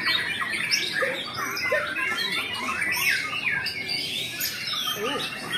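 Many caged white-rumped shamas singing at once: a dense chorus of overlapping whistled phrases with quick rising and falling notes.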